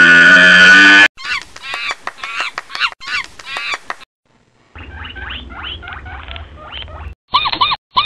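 Elk bugle: a loud, high whistling call held for about a second, then a run of shorter squealing calls. After a brief gap, monkey chattering over a low hum, and near the end rat squeaks in a quick, regular series.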